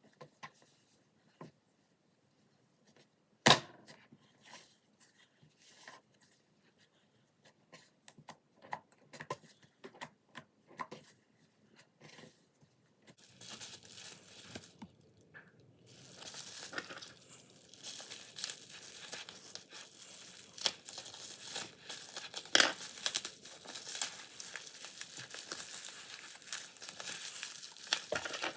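Plastic slime packaging being handled, crinkled and torn open. First come scattered clicks and one sharp snap a few seconds in, then steady crinkling and tearing from about halfway through.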